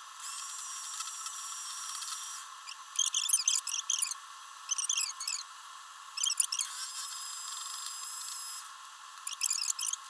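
An electric hand mixer whirring in two short runs while beating egg whites to a stiff meringue. Between and after the runs come several loud clusters of high, squeaky chirps.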